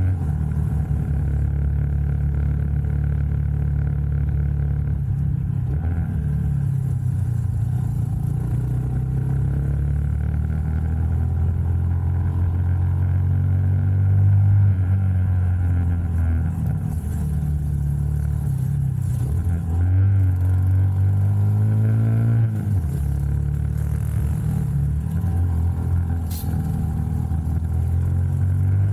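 Small single-cylinder motorcycle engine running while riding, its revs rising and falling with the throttle and a couple of sharp pitch changes past the middle as gears change.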